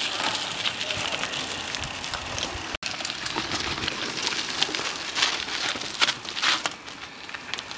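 Mountain bike tyres rolling and crunching over dry leaves and loose rocky dirt as riders pass, a steady crackle with many sharp clicks and rattles. It cuts out for an instant a little under 3 s in.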